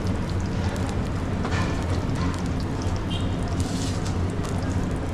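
Food sizzling on a hot griddle, with an even hiss over a steady low hum and a few light clicks.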